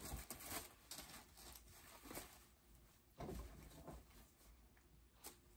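Faint rustling and a few soft knocks as a felt hanging calendar is handled and set aside, with a slightly louder bump a little past the middle.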